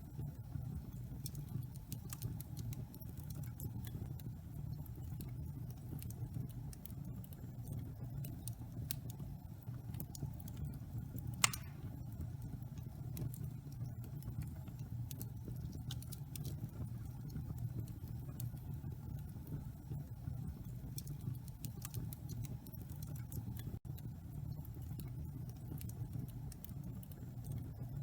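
Wood fire burning in a fireplace: a steady low rumble of the flames with scattered small crackles, and one louder pop about eleven seconds in.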